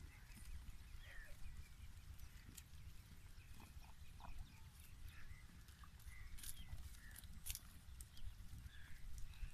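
Goat herd grazing on dry stubble, faint, with scattered short high chirps and a few sharp clicks over a steady low wind rumble on the microphone.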